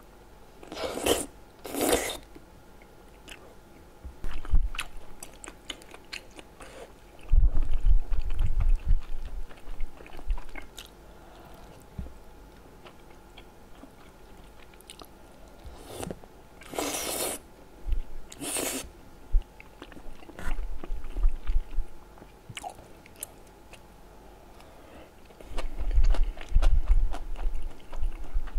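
Close-miked eating of tteokbokki with melted cheese: wet chewing with soft low thumps in several runs. There are two short slurps about a second in and two more around the middle as long pieces are sucked into the mouth.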